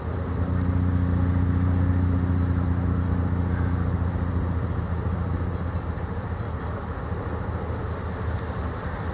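Diesel locomotive engine running with a low, steady drone, just after its horn has sounded, fading away after about five seconds as the train moves off.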